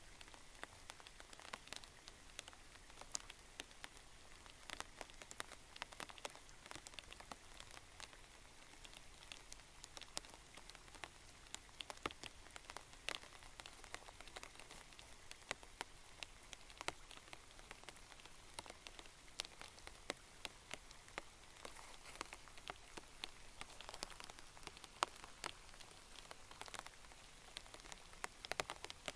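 Rain falling: a faint, steady hiss with individual raindrops ticking sharply at irregular intervals.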